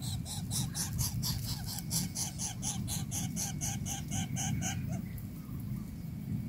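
Greater coucal chick in the nest giving a fast series of short, even begging calls, about five a second, which stop about five seconds in, over a steady low rumble.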